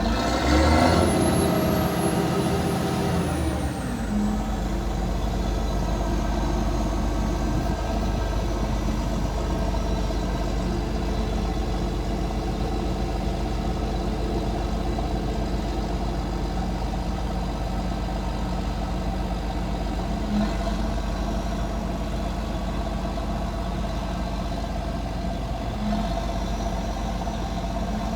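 Volvo D8H diesel engine of a tracked asphalt paver running steadily. For the first four seconds or so it runs louder, with a high whine that rises and then slowly falls away. A few faint clicks come later on.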